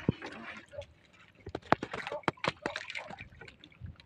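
Water splashing and sloshing against the side of a small outrigger boat. A quick run of sharp knocks and clicks comes about one and a half seconds in.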